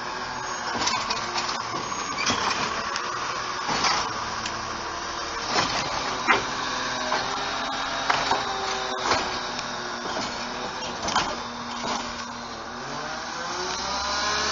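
CNG-powered Autocar ACX garbage truck with a Bridgeport Ranger automated side-loader body working close by: a steady mechanical hiss and whine with scattered clanks and knocks from the body. The engine revs up near the end.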